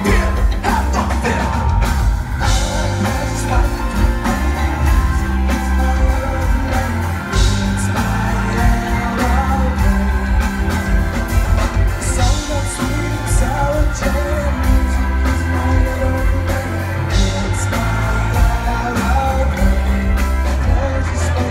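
Live rock band playing a song with a lead singer, guitar, bass and drums, the low bass strong and steady throughout.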